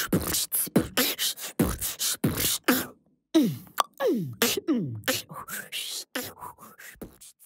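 Beatboxing: a fast run of mouth-made drum sounds, deep kicks that drop in pitch mixed with sharp snare and hi-hat clicks. There is a brief break about three seconds in, and the beat trails off near the end.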